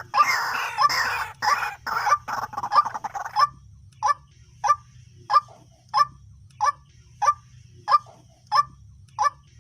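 White-breasted waterhen calling: a loud, harsh run of calls for about three and a half seconds, then a steady series of short single notes, about one and a half a second.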